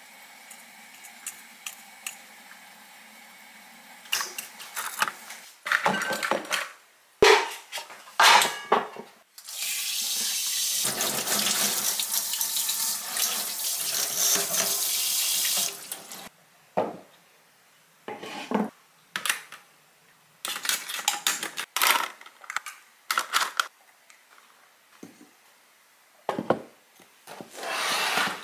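Kitchen tap water running onto a wooden cypress steamer for about six seconds, starting about a third of the way in. Before and after it come scattered short knocks and clatter as the steamer's wooden parts are handled.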